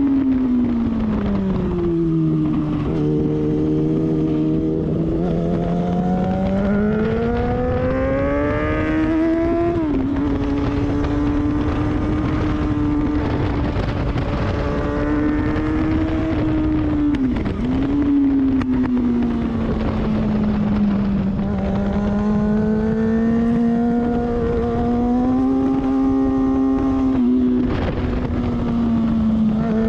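Sport motorcycle engine on a track lap, heard from a camera on the bike. Its pitch falls in the first two seconds, climbs steadily under acceleration to a sharp drop at a gear change about ten seconds in, dips briefly again near eighteen seconds, then holds fairly steady. A dense low rush of wind noise sits under it.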